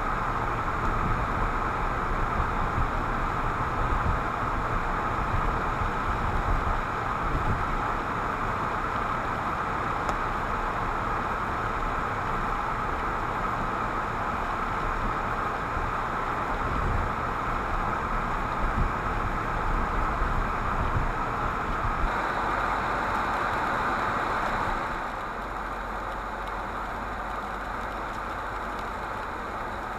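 Steady car noise heard from inside the cabin: engine and tyre rumble of a car driving. It drops to a quieter, lighter level about 25 seconds in.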